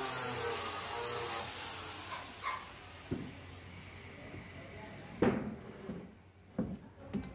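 A power drill runs for about two seconds, then wooden knocks as plywood panels are handled. The loudest knock comes about five seconds in, as the plywood top is laid onto the shelf carcass.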